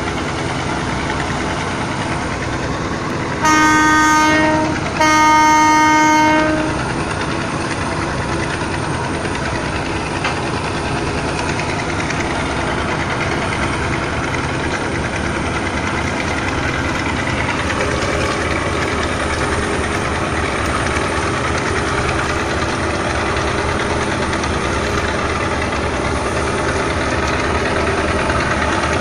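A river passenger launch's horn blows twice in quick succession, about 1.3 and 1.6 seconds long, starting about three and a half seconds in. The launch's engine drones steadily underneath.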